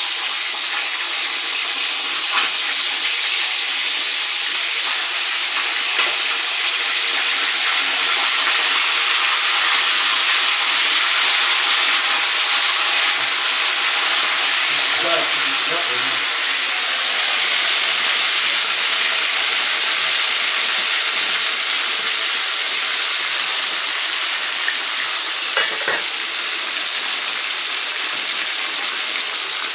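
Fish steaks frying in hot oil in a frying pan, a steady sizzle with a few light clicks.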